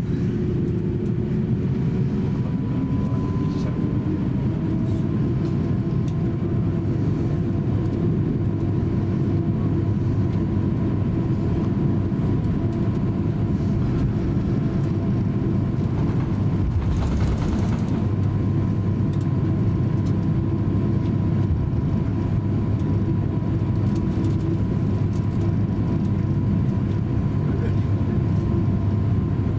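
Airbus A350-900 cabin noise while taxiing: the Rolls-Royce Trent XWB engines at idle give a steady low rumble with a faint steady whine. A short louder noise comes about halfway through.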